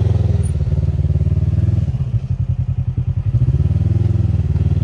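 Polaris RZR side-by-side's twin-cylinder engine running at low revs with a pulsing rumble while it is eased back and forth. The pitch picks up briefly twice under light throttle.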